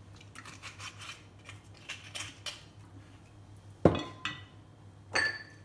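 Kitchen handling sounds: light, quick clicks for about two seconds. Then a sharp knock about four seconds in, the loudest sound, and a ringing clink a second later.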